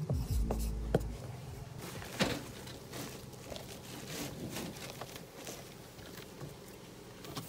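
Faint rustling, scraping and scattered light knocks as Owens Corning Woodmoor asphalt shingles are handled and set in place on the roof deck, with one sharper knock about two seconds in. A low hum fills the first second.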